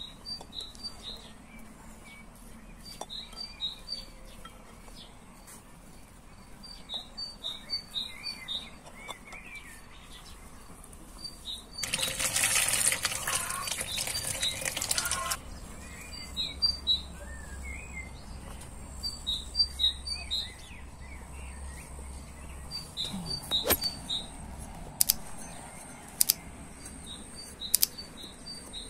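Small birds chirping in short repeated phrases throughout. Near the middle, running water splashes over tomatoes and a green pepper for about three seconds; near the end a knife cutting a tomato knocks sharply on a wooden cutting board a few times.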